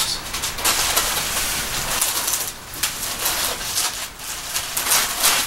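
Polystyrene foam packaging scraping and crackling with rustling, as a statue base is pulled out of its foam box. The sound is a dense run of short scratchy crackles with no steady tone.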